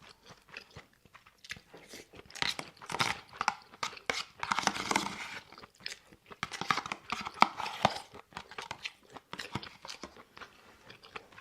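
A person chewing and crunching food close to the microphone: irregular crisp crunches and mouth sounds, busiest in the middle stretch.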